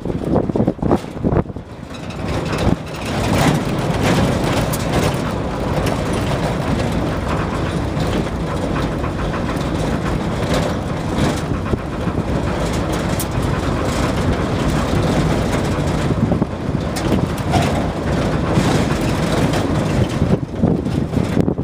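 Engine and road noise inside the cab of a 1970s Ford pickup truck as it is driven: a steady low rumble.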